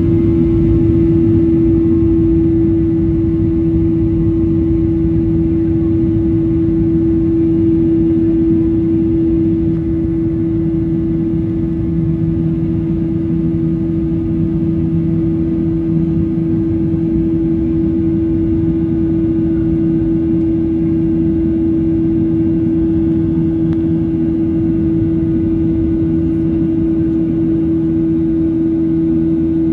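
Cabin noise inside a Boeing 737-800 during the climb-out: the steady drone of its CFM56-7B turbofan engines, a strong steady hum over a low rumble and rushing air, easing very slightly about ten seconds in.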